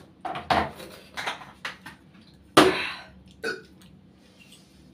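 Mouth and throat noises of a person eating hot boiled noodles in a hurry: about six short breathy bursts, the loudest about two and a half seconds in.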